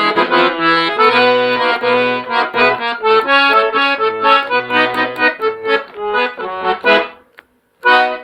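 Solo accordion (sanfona) playing a melody with chords and bass notes in short, rhythmic phrases; it breaks off about seven seconds in and a final short chord sounds near the end.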